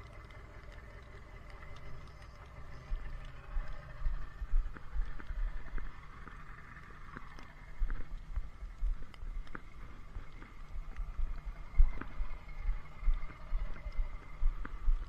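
Footsteps walking over packed snow, heard as a run of low thumps and small clicks about two a second. They start about three seconds in, pause for a couple of seconds around the middle, then carry on.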